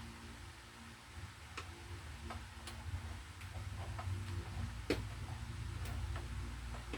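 Scattered small clicks and taps as a power-cord wire's terminal connector is handled and pushed onto a terminal inside a vacuum cleaner, over a steady low hum.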